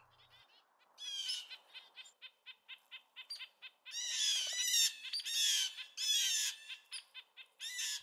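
Small songbirds giving mobbing calls at a marten: a fast series of short, sharp chips broken by several harsher scolding calls. It is the alarm raised at a predator.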